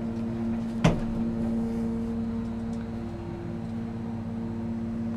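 Steady, even hum, with a single sharp knock about a second in.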